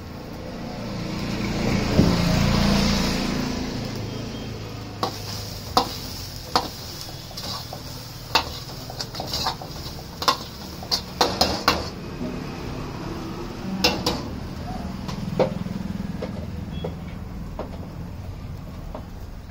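Steel ladle clanking and scraping against a steel wok while egg fried rice is stirred and tossed, in irregular sharp knocks, most of them between about 5 and 15 seconds in. Under it the rice sizzles, with a swell of sizzling in the first few seconds as sauce and spice powder go into the hot pan.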